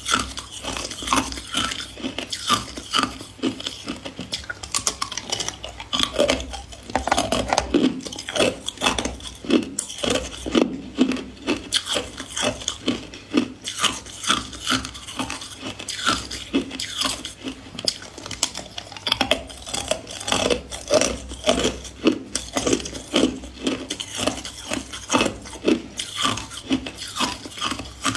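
Hard ice cubes being bitten and chewed, a steady run of crunches, roughly two or three a second.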